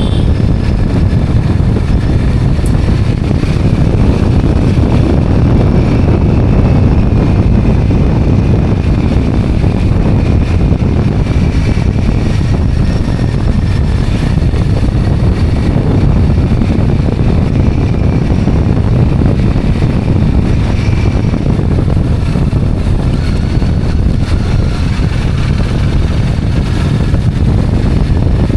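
A two-wheeler on the move: steady wind buffeting the microphone over engine and road noise.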